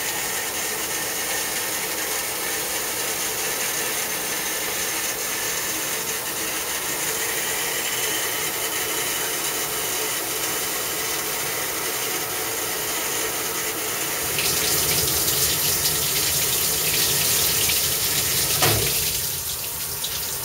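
Water rushing and splashing in a wet bench's quick dump rinse tank during its overflow rinse step. About two-thirds of the way in a louder hiss joins it, and a single knock comes near the end before the rush eases.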